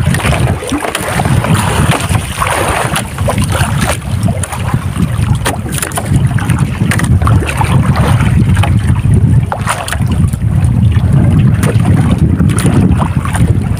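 Wind rumbling on the microphone aboard a small outrigger fishing boat, rising and falling in gusts, with water lapping against the hull and scattered small knocks.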